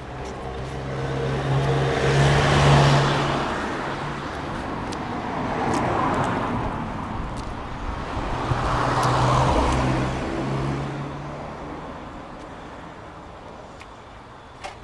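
Cars driving past one after another: three passes, each swelling and fading with a low engine hum and tyre noise, the loudest about two and a half seconds in.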